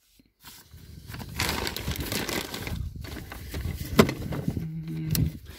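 Rustling, crinkly handling noise, loudest in the first half, with a sharp click about four seconds in and a brief low hum near the end.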